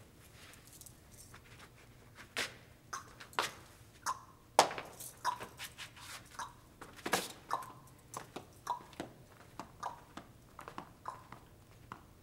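Footsteps on a hard floor: a run of sharp knocks, roughly two a second and uneven, each with a short ring, starting about two seconds in.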